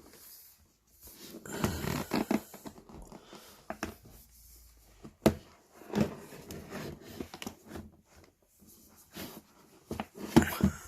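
Cardboard box and packaging being opened and handled: irregular rustling, with a sharp click about five seconds in and a knock soon after.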